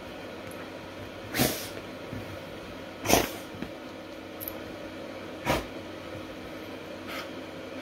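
A dog giving three short, sharp snorts through its nose a second or two apart, with a fainter fourth near the end, while it rubs its face into a quilted bedspread.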